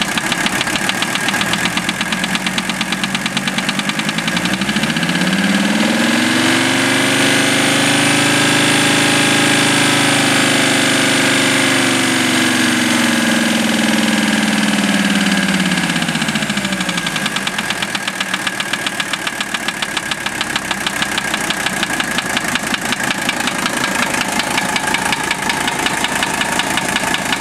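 Mercedes-Benz OM617 five-cylinder diesel idling with a steady rhythmic knock that keeps pace with engine speed. About four seconds in it is revved up, held for several seconds and let back down to idle. The owner suspects a bad wrist pin, since valve adjustment and cracking the injectors did not change the knock.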